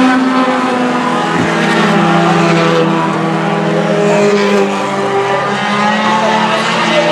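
Several four-cylinder stock cars racing together on a short oval, their engines running hard in a steady blended drone, with pitches rising and falling as the cars lap.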